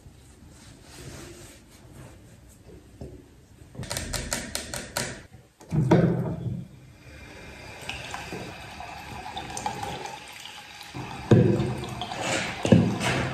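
Bathroom sink tap running water into the basin. It starts suddenly about halfway through, after some rustling and a quick run of clicks. Near the end comes a louder knock with splashing as a foam-cleanser pump is pressed and hands work under the water.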